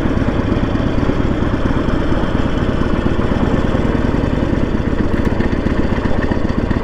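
Harley-Davidson Sportster 1200's air-cooled V-twin engine running steadily, a rapid even pulsing with no change in revs.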